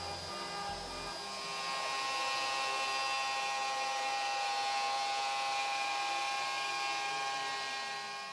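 CNC router spindle running at high speed and cutting a mahogany board: a steady, high whine with several fixed pitches. It grows louder about two seconds in and fades away near the end.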